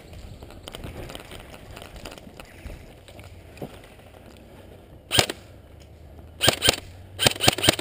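Airsoft gun firing close to the microphone in sharp single shots: one about five seconds in, then two quick strings of three or four shots near the end.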